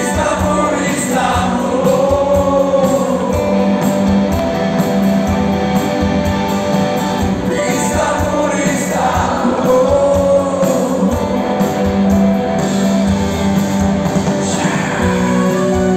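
Live rock band playing electric guitar, bass and drums over a steady low drone, with a sung vocal line, loud and full as heard from the audience.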